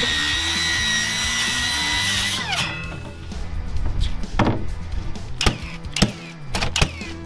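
Cordless circular saw cutting through plywood with a steady high whine, then spinning down. A cordless nail gun follows with a quick series of sharp nail shots, driving the plywood top onto its wooden frame.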